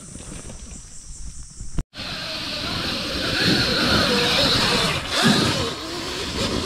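Electric dirt bike riding through a dirt trail corner: a hissing rush of motor and tyres scrabbling in loose dirt. The sound is quieter at first, then jumps louder about two seconds in and swells in the middle.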